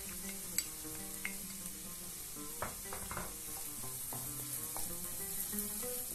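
Fresh and black mushrooms sizzling in butter and oil in a frying pan, with a steady hiss. A wooden spoon stirs them, knocking against the pan a few times.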